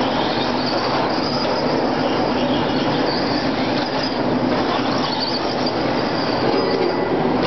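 Electric 2WD RC trucks racing on a dirt track: a steady mix of high, shifting electric motor and gear whine over the rush of tyres on dirt.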